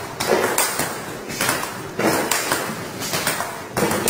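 Table tennis ball being struck again and again by a light 13 mm balsa-wood paddle and bouncing on the table during backhand flick practice: a steady run of sharp clicks, about three a second, in a large hall.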